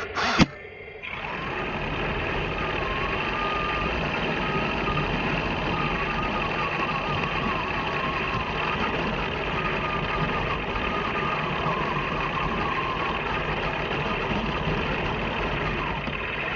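Heng Long Walker Bulldog RC tank running on its newly fitted gearboxes, a steady mechanical running noise from its drive motors and gears. It starts about a second in, just after a short sharp click, with a faint wavering whine over it.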